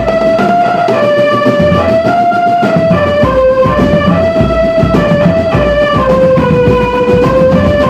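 Drum band playing: a melody of held notes stepping up and down over busy, steady drumming with deep bass-drum thumps.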